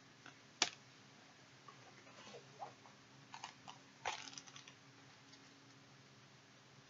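Faint handling noises of an oracle card and its small paper guidebook being picked up and leafed through: a sharp click about half a second in, then light rustling and tapping, with another click about four seconds in.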